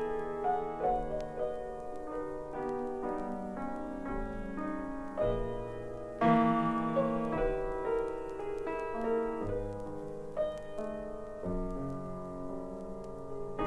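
Jazz piano playing a series of struck chords and single notes that ring and die away, with a louder chord struck about six seconds in.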